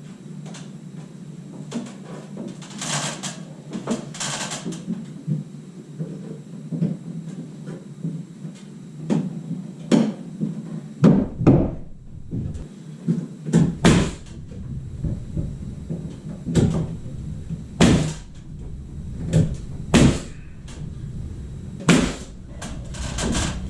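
Carpentry work on wooden boards: scattered sharp knocks and clatter at an irregular pace, sparse at first and busier after about ten seconds in.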